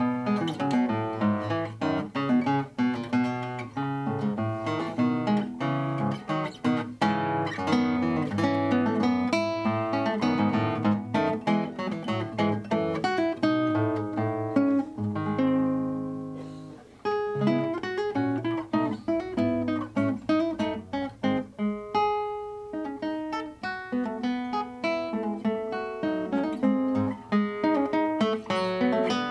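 Solo nylon-string classical guitar played fingerstyle: quick runs of plucked notes and chords. About halfway through, a chord is left ringing and dies away, then the playing picks up again.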